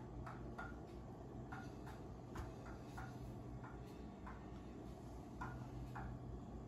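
Faint, irregular ticking clicks, about one or two a second, over a low steady hum.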